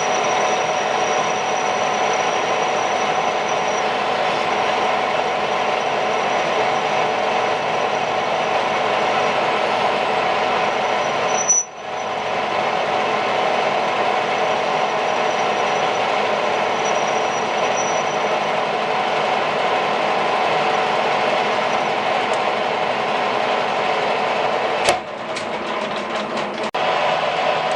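An electric power tool motor runs steadily with a constant whine. It stops for a moment about twelve seconds in, then picks up again. A sharp click comes near the end, after which the sound changes.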